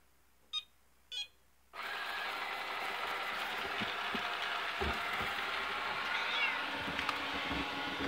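A robot vacuum cleaner beeps twice, then its motor and brushes start suddenly and run steadily as it sets off across the floor, with a few dull bumps.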